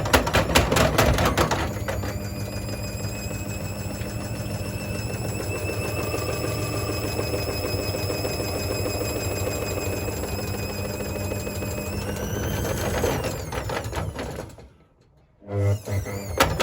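Hoover H3W69TME washing machine running: a brief rattling clatter, then a steady motor whine that rises a little near the end and cuts off suddenly.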